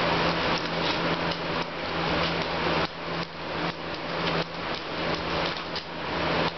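Two dogs tussling over a plush toy on a hardwood floor: a quick, irregular run of knocks and scuffles from paws and the toy. A steady low hum runs underneath.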